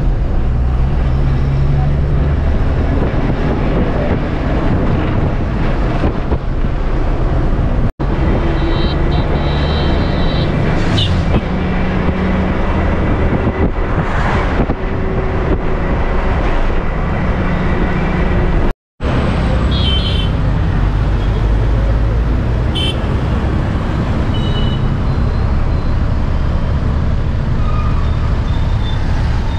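Bus engine and road noise heard from inside the moving bus, loud and steady, breaking off for an instant twice where shots are joined.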